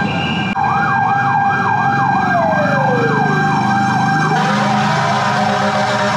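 Emergency vehicle siren, which is taken for a fire engine's, going in a fast yelp that sweeps up and down about three times a second, with a slower wail sliding down and back up beneath it. The yelp stops about four seconds in, leaving a steadier siren tone over street traffic.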